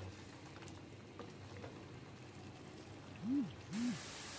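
Chicken masala bubbling and faintly crackling in hot oil in a kadhai, a sign the masala is being fried in oil. Near the end come two brief pitched sounds that rise and fall, about half a second apart.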